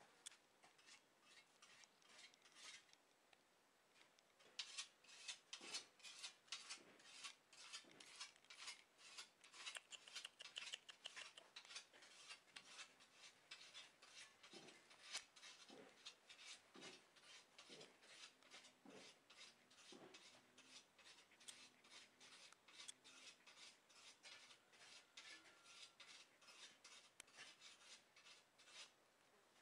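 A faint, fast run of clicks and rustles, many per second, growing denser about four seconds in and going on until near the end.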